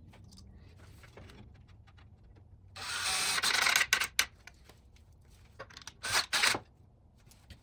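Cordless DeWalt drill boring a pilot hole into a half-inch pallet-wood shelf board: one burst of about a second and a half, starting about three seconds in, then two short bursts around six seconds in.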